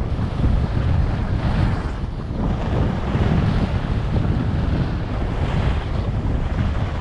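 Heavy wind buffeting on the microphone of a camera moving downhill on skis, with the hiss of skis sliding over groomed snow swelling and fading a few times through the turns.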